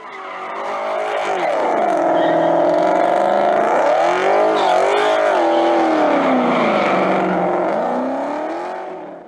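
Car engine revving, its pitch rising and falling several times. The sound fades in at the start and fades out at the end.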